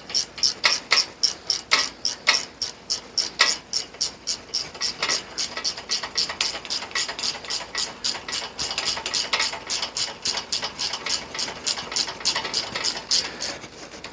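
Ratchet wrench clicking in quick, even strokes, about four or five clicks a second, as a bolt is run down and tightened.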